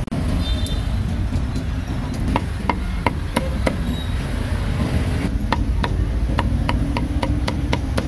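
Cleaver chopping roast meat on a wooden block. A few spaced knocks come about two and a half seconds in, then a quicker run of about three to four chops a second from about five seconds in, over a steady low street rumble.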